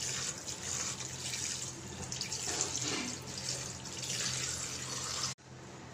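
Cold tap water running steadily over fresh chhana in a cloth-lined strainer, rinsing the curds. The water sound cuts off abruptly near the end.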